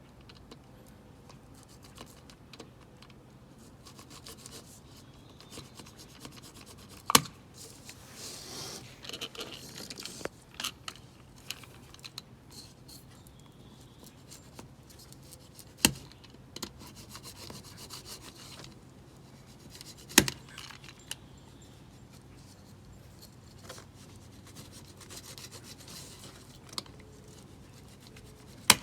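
Spline being rolled into the channel of a window screen frame with the net stretched: intermittent rubbing and scraping, broken by four sharp clicks or knocks spread through the stretch.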